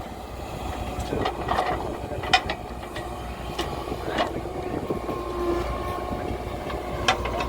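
Heavy diesel machinery running steadily, with sharp knocks and clanks at irregular intervals.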